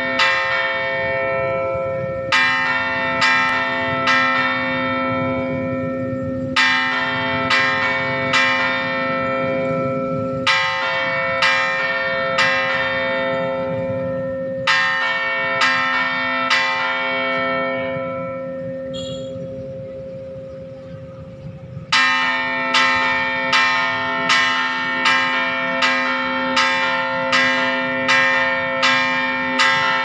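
San Bartolome Parish church tower bells being test-rung by hand, struck in short groups of four or five strokes with the ringing carrying over the pauses. After a lull of a few seconds where the ringing dies down, a steady run of strokes follows at about two a second.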